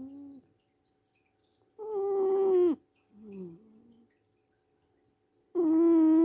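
Cat snoring very loud, in a repeating pattern. A long, loud pitched snore of about a second is followed by a shorter, softer snore that steps down in pitch, and another loud snore starts near the end.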